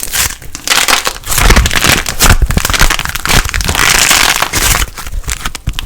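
Light plasticine being squeezed and pressed by hand, giving a dense run of crackling and crunching pops.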